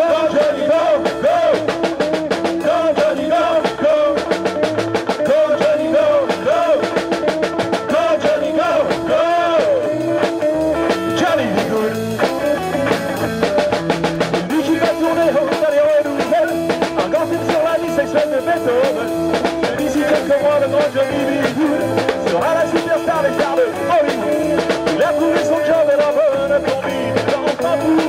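Live rock band playing: drums, electric guitar and bass under a wavering lead line from the front man at the microphone.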